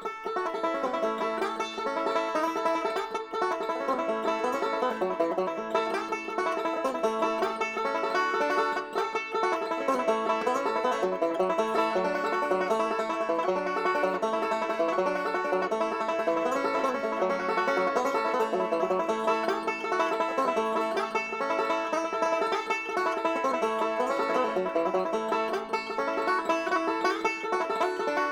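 Banjo playing a bluegrass breakdown: a steady stream of quick, bright picked notes that begins right at the start.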